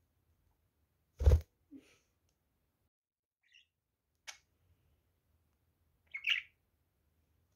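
A budgerigar chirping briefly, once faintly about three and a half seconds in and again more loudly near the end. A loud thump comes about a second in, and a small click just after four seconds.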